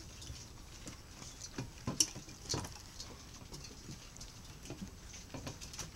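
Irish setter puppies eating and jostling on a wooden deck: a patter of small, irregular taps and clicks from claws on the boards and the metal feeding pan, with a sharper knock about two seconds in and another about half a second later.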